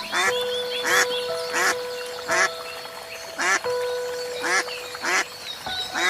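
A string of short animal calls, about seven of them, roughly one every second, over background music with long held notes.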